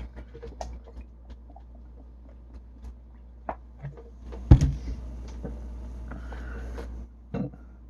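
Plastic 2-liter soda bottle being handled: scattered small clicks and knocks, a louder thump about four and a half seconds in, then a soft hiss for about two seconds.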